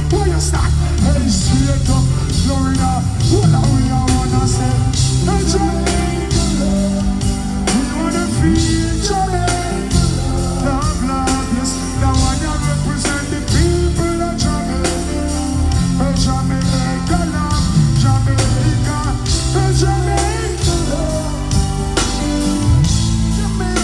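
Live band music with singing, over a heavy bass line and a steady beat.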